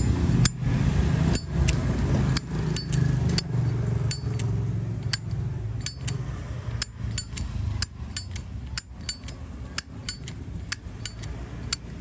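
Zippo lighter being flicked open and snapped shut again and again: sharp metal clicks, many with a short ring, coming faster in the second half, over a low background rumble.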